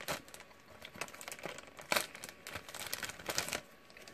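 Plastic accessories packet being opened and handled: irregular crinkling and crackling of thin plastic, with the sharpest crackle about two seconds in.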